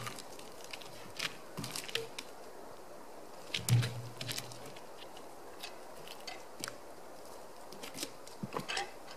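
Logs being moved by hand on a log pile: scattered knocks and clicks of wood on wood, with one heavy thud about three and a half seconds in.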